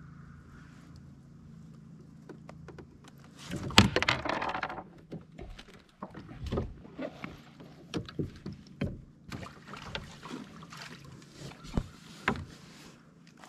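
Knocks, clicks and rattles of a landing net and fishing rod being handled against a plastic fishing kayak's hull. A loud thump with a brief clatter comes about four seconds in, followed by scattered lighter knocks.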